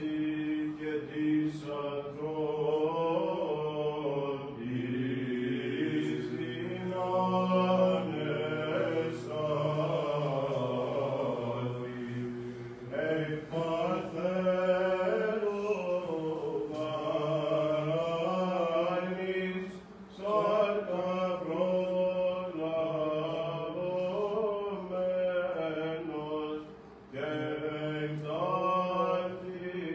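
Greek Orthodox Byzantine chant: sung melodic phrases moving over a steady held low note, broken by short pauses about two-thirds of the way through and again near the end.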